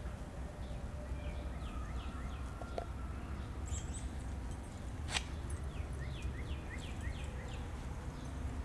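Background ambience: a low steady rumble under two runs of a bird's short, quick falling chirps, with one sharp click about five seconds in.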